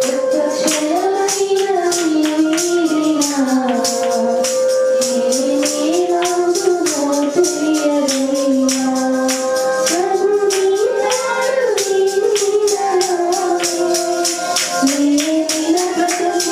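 A song sung by voices with a melody that rises and falls through held notes, over a tambourine shaken in a quick, even beat.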